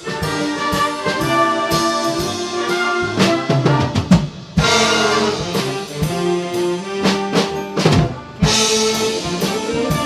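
Community concert band playing a Hollywood film-music medley: sustained brass chords with drums. The music breaks off briefly twice, about four and eight seconds in, each time coming back with a sudden loud full-band accent.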